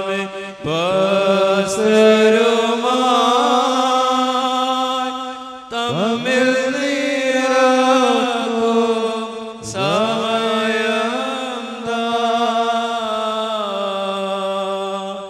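Congregation singing a slow Syriac-rite liturgical chant in unison, in three long melodic phrases with held notes and short breaks between them.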